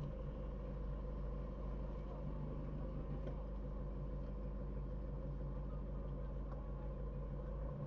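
Car driving at a steady pace, heard from inside the cabin: a steady low rumble of engine and road noise with an even hum.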